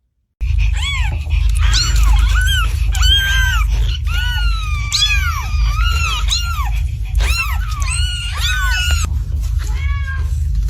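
Cats meowing again and again: many short, high mews that rise and fall, overlapping one another, over a steady low hum. It starts abruptly about half a second in.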